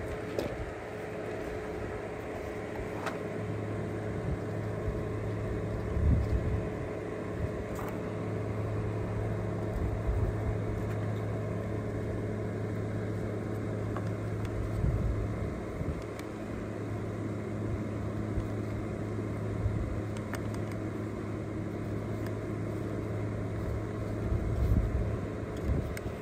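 A steady motor hum, with a low drone and a faint higher tone under it. Now and then come knocks and clicks as the cab jack's hydraulic pump is handled and put back together by hand, the loudest about six seconds in and near the end.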